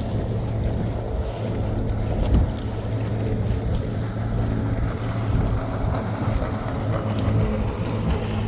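Boat motor running steadily with a low hum, with wind buffeting the microphone.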